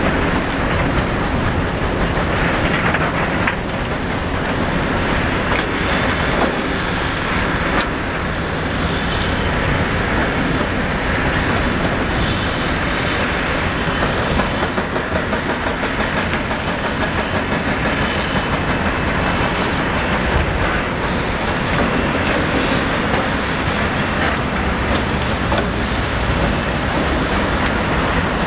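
Hydraulic breaker hammer on a Caterpillar 325D L excavator pounding concrete, a rapid, steady run of blows.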